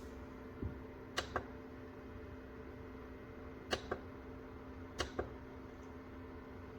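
Small dehumidifier's fan running with a steady hum. A soft thump comes just under a second in, then three pairs of sharp clicks, each pair a fraction of a second apart.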